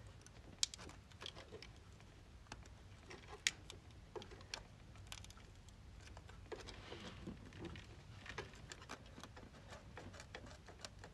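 Faint scattered small metallic clicks and taps from a screwdriver turning a rocker-arm valve-adjusting screw and a feeler gauge being worked in the valve gap, during a valve-clearance adjustment on a Honda CR-V's 2.4-litre engine.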